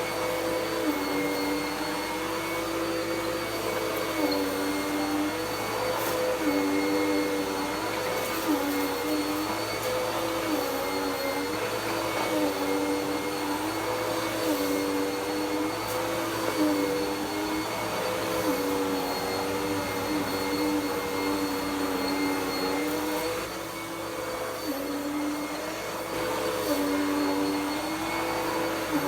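Dirt Devil PowerMax Pet upright vacuum cleaner running steadily with a motor whine, its pitch dipping and recovering about every two seconds.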